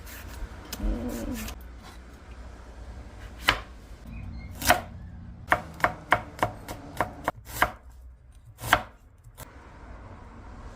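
Kitchen knife chopping on a cutting board: about a dozen sharp strikes at uneven intervals, with a quick run of them in the middle.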